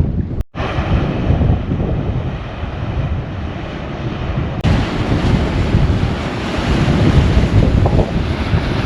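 Strong wind buffeting the microphone: a dense, gusty rumble with hiss over it. It drops out for an instant about half a second in and turns brighter and hissier about halfway through.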